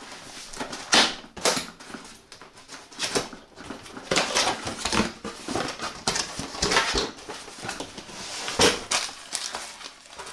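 Cardboard box being opened and its packed contents handled: irregular rustling and scraping of cardboard and packaging with a few short knocks.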